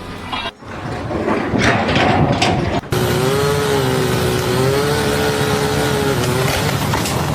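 Machinery running: a rumbling engine-like sound, then from about three seconds in a steady whine that wavers slightly in pitch.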